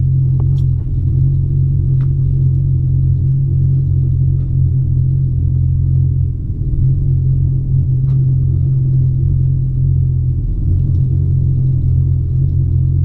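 Pickup truck engine idling: a steady low rumble, with a few faint clicks over it.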